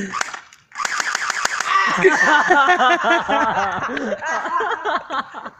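A young person's voice making a rapid string of wordless pitched syllables, each rising and falling, about five or six a second.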